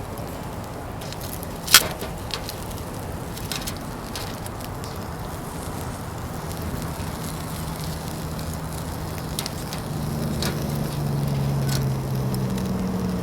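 Fire crackling in a Uniflame Fire Grill fire pit, with scattered sharp pops, the loudest about two seconds in. From about halfway a low steady hum comes in and grows louder toward the end.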